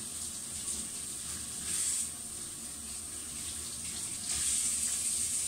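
Kitchen tap running into a stainless steel sink while gloved hands rinse under the stream; the water gets louder about four seconds in.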